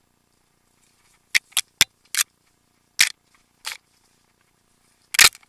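Short, sharp knocks and rattles at irregular intervals, about seven of them, the loudest near the end: a mountain bike and its mounted camera jolting over a rough, rocky trail.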